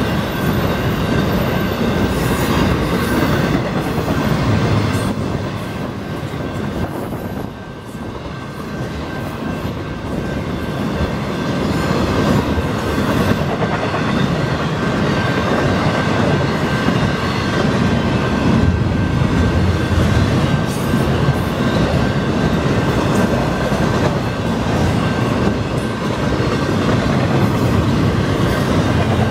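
Florida East Coast Railway intermodal freight train's cars rolling past a grade crossing: a steady, loud noise of steel wheels on rail. It goes briefly quieter about seven seconds in, then builds again.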